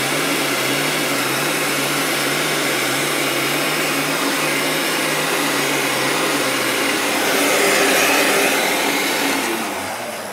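Heat gun blowing steadily, its fan motor giving a low wavering hum, while shrinking heat-shrink sleeves onto wire connectors. It gets a little louder about three-quarters of the way through and fades near the end.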